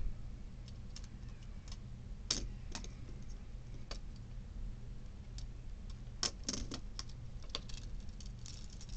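Scattered sharp plastic clicks and taps from fingers handling and flicking an LED light-up fidget spinner, over a faint steady hum.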